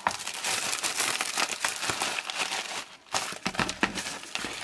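Plastic packaging crinkling and rustling as a cellophane gift bag is pushed into a padded bubble mailer, with a brief pause about three seconds in.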